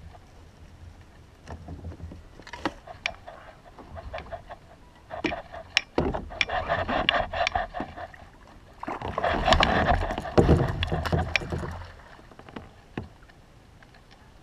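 Hooked tarpon splashing and thrashing at the surface beside a kayak, in two loud bouts about five and nine seconds in. Sharp clicks and knocks are scattered through it.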